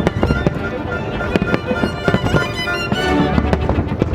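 Fireworks going off in many sharp bangs and cracks, with violin background music playing over them.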